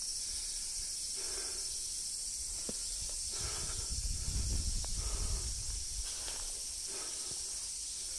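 A steady high-pitched insect chorus, with a few soft rustling steps in grass and a low rumble on the microphone about four seconds in.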